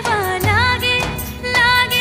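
Background song: a singing voice with gliding, ornamented notes over instrumental backing and a regular beat.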